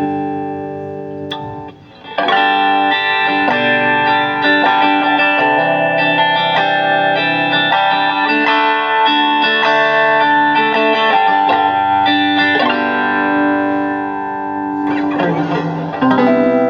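Guitar music: sustained, ringing chords that change every second or two, with a brief dip in level about two seconds in.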